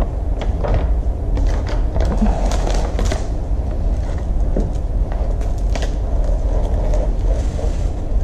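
Paper and plastic film rustling and crinkling by hand: a diamond painting canvas's protective paper is lifted, folded back and smoothed flat, with scattered small crackles and a steady low rumble underneath.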